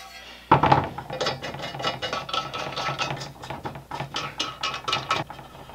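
Hand ratchet wrench clicking in quick repeated strokes as it tightens the bolts holding the top plate onto a metal speaker-stand column. The clicking starts about half a second in and stops about five seconds in.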